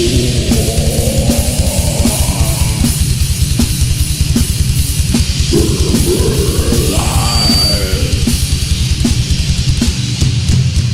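Heavy metal music: fast, dense drumming under heavily distorted guitars, with guitar lines sliding up and down in pitch.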